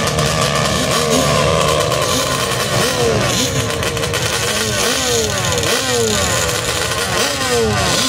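Sand drag quad's engine revved over and over in short blips at the starting line, each rev a quick rise and fall in pitch, coming in quick succession.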